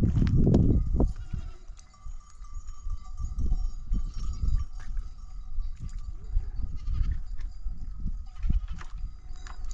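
Livestock bleating over an uneven low rumble, which is loudest in the first second.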